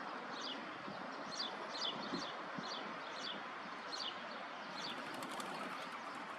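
A small songbird chirping over and over, short high chirps that fall in pitch, about two a second, over a steady hum of outdoor background noise.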